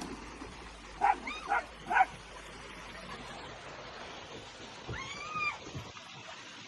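A small pet animal calling: three short high calls about a second in, then one longer call that rises and falls near the end.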